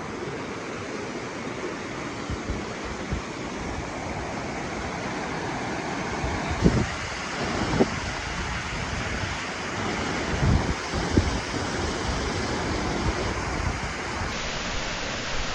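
Steady rushing of a mountain waterfall, with wind buffeting the microphone in a few short low thumps from about halfway through.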